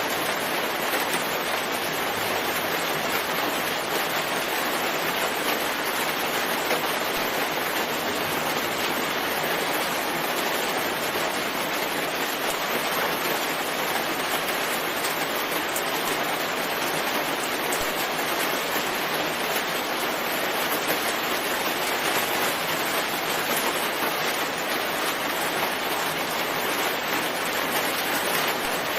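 Steady rain falling as an even, unbroken hiss.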